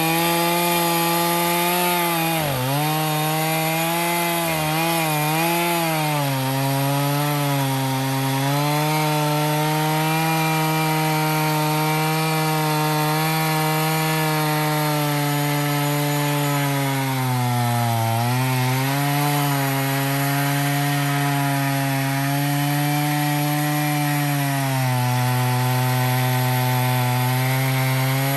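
Stihl MS461 two-stroke chainsaw on an Alaskan mill, held at full throttle through a long rip cut in a cedar log. Its pitch sags briefly about two and a half seconds in, again around five seconds, and near eighteen seconds as the chain loads up in the wood, then recovers.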